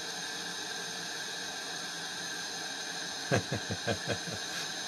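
Propane-oxygen glassworking torch flame hissing steadily while glass is heated in it. About three seconds in, a quick run of about six short sounds.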